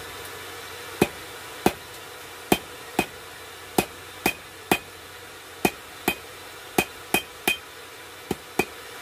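A hammer striking metal: about fourteen sharp, ringing strikes at an uneven pace, roughly one or two a second.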